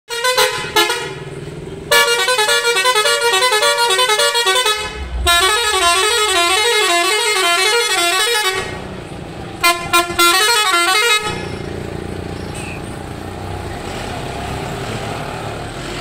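Musical air horn on an Eicher 10.50 BS4 sounding loudly. It gives a few short blasts, then two long runs of tones stepping up and down in pitch like a tune, then more short blasts around ten seconds in. After that only a steady low running sound of the vehicle remains.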